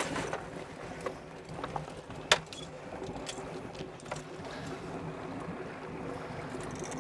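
Boat engine running steadily at trolling speed, with a few light clicks and one sharp click about two seconds in while pliers work the hooks out of a netted muskie.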